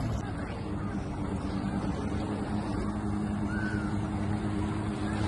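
Kawasaki SC750 Super Chicken jet ski's 750 small-pin two-stroke twin engine running at a steady drone as the craft cruises across the water.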